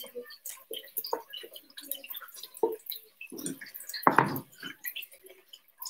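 Fried plantain slices being smashed flat with a wooden rolling pin on a wooden cutting board for patacones: scattered small crackles and soft taps, with a heavier wooden knock about four seconds in.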